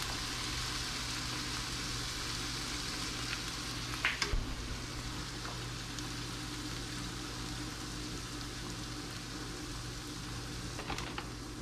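Small pieces of mahi-mahi sizzling in olive oil in a hot pan, a steady frying hiss. There is a brief clatter about four seconds in.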